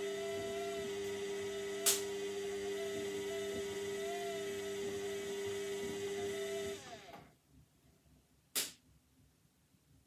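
Indesit front-loading washing machine running with a steady whine, which winds down and stops about seven seconds in. Two sharp clicks, one about two seconds in and one after it has stopped.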